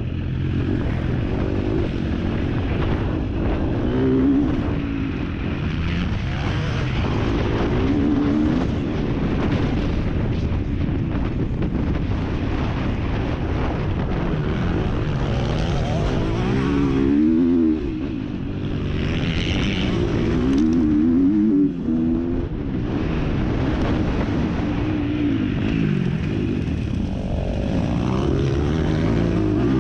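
MX2 motocross bike engine revving hard and easing off over and over, its pitch climbing and dropping with the throttle and gear changes.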